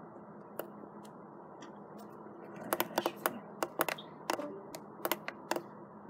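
A quick, irregular run of about a dozen sharp clicks and taps, starting after a single click and bunched in the second half, over a faint steady hiss.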